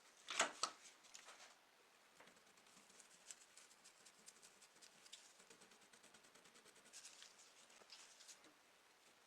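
Faint hand-work on a small die-cast toy car: a brief clatter of sharp clicks about half a second in, then light scratching and ticking.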